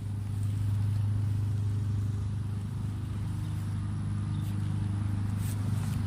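Honda HRN lawn mower's GCV170 single-cylinder four-stroke engine running at a steady speed, on one of its first runs as a brand-new engine.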